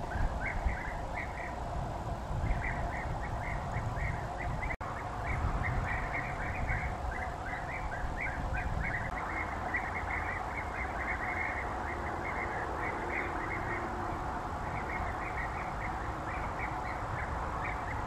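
A colony of European bee-eaters calling: many short, rolling calls repeated over and over and overlapping in a continuous chorus, over a steady low rumble.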